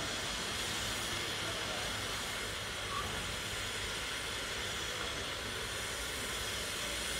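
Steam locomotive Tornado, an LNER Peppercorn A1 Pacific, letting off steam with a steady hiss and no exhaust beats.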